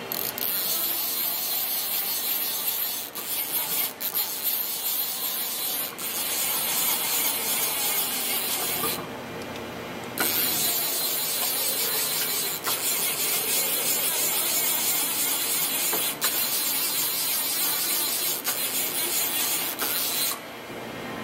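Fanuc Alpha T10A drill-tap vertical machining center running with a loud, steady hissing rasp. The rasp cuts out for about a second around nine seconds in and stops shortly before the end. Under it, a faint whine glides up and down.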